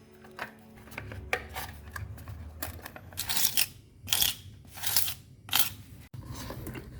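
Short scraping, crunching strokes in a hole in a masonry wall: several hard scrapes in the second half, as a socket box is worked into the wall.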